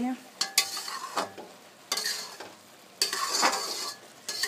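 Metal spoon stirring and scraping freshly cooked yellow sweet rice around a metal kadai, in about four rough strokes with small clicks of metal on metal, the longest stroke near the end. The rice is being turned to check that it is done.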